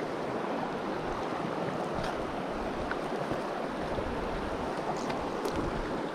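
Steady rush of a shallow river's current, with a few faint clicks.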